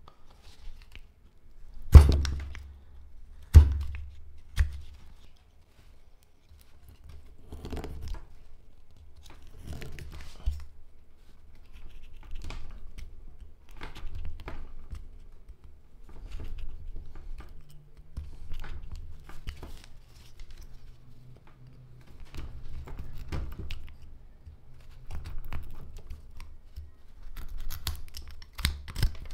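A carving knife paring hard black locust wood by hand: short scraping cuts, one every second or two. Two sharp knocks come about two and three and a half seconds in.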